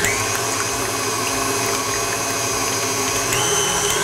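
KitchenAid Artisan stand mixer running steadily, its wire whisk beating eggs and sugar in the steel bowl for a sponge batter. The motor's whine steps up in pitch about three seconds in as the speed is raised.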